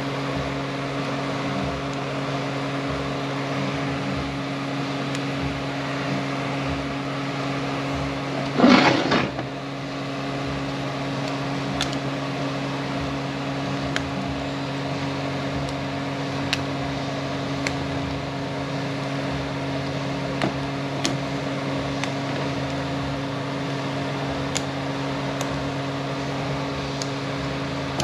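A steady mechanical hum from a shop fan or similar machine, with faint scattered clicks of small parts being handled. About a third of the way in comes a loud rushing burst lasting about a second.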